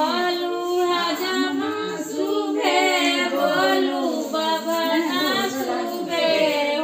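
Women's voices singing a folk song together, unaccompanied, with long wavering held notes.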